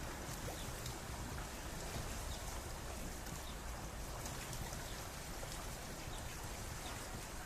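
Water rushing and splashing at a water mill: a steady rushing with scattered small drips and splashes.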